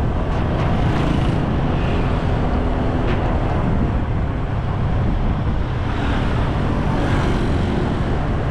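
Steady rush of wind on the microphone mixed with vehicle and road noise, a deep even rumble from a camera moving along a road.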